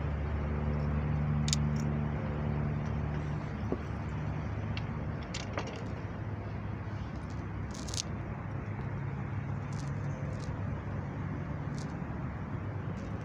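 A motor engine running with a steady low hum, which fades out after about three and a half seconds, leaving a steady low background noise with a few faint clicks.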